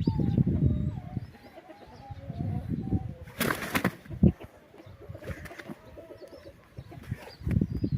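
Birds calling, with a short flutter of wings about three and a half seconds in.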